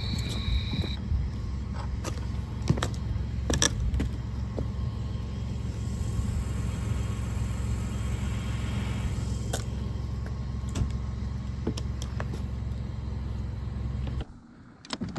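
Boat motor running steadily with a low hum while under way, then shutting off near the end.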